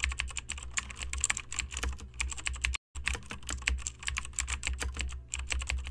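Computer keyboard typing sound effect: fast, irregular key clicks that pause briefly about halfway through.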